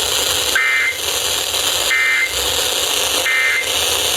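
Emergency Alert System end-of-message data bursts: three short, shrill two-tone digital bursts about 1.3 seconds apart, over steady radio hiss. They mark the end of the alert broadcast.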